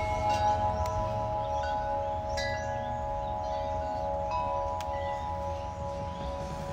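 Tubular wind chime ringing, its tubes struck again every second or so, the tones ringing on and overlapping.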